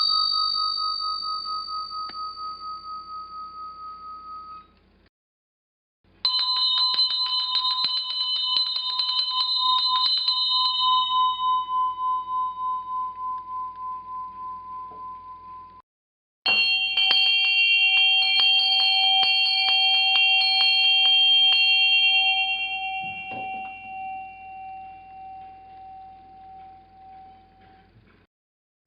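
A series of bell sounds. A high bell's ring fades out in the first few seconds. After a short gap, a lower bell is struck many times in quick succession for about five seconds and then left to ring and fade. After another short gap, a still lower bell does the same, with a wavering fade.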